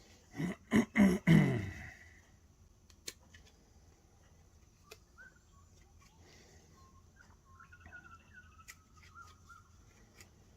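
A dog barks four times in quick succession, the last bark dropping in pitch, then gives a soft wavering whine a few seconds later. Faint clicks of cardboard pieces being handled.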